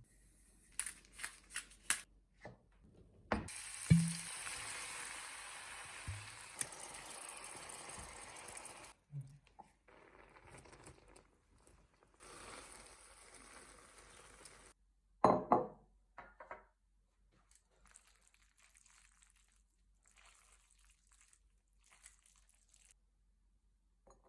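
Kitchen cooking sounds: a few light clicks, then a sharp knock about four seconds in, followed by several seconds of steady hissing. A second, shorter hiss comes later, then a brief burst of clattering knocks, with only faint rustling after that.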